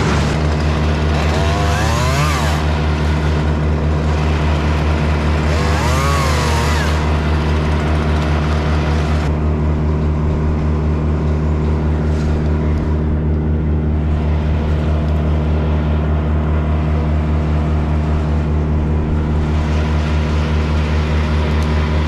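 An engine runs steadily at constant speed, with two brief noisier passages that rise and fall about two and six seconds in.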